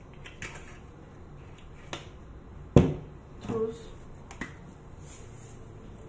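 Kitchen containers handled on a counter: a few light clicks and one sharp knock about three seconds in, as the glass olive oil bottle is set down and a salt canister picked up, with a short pitched squeak just after the knock.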